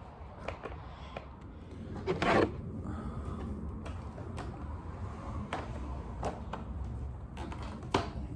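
Plastic body panels and their fasteners being refitted on a Honda CRF250L motorcycle: scattered clicks and knocks, with a louder scrape about two seconds in and a sharp knock near the end.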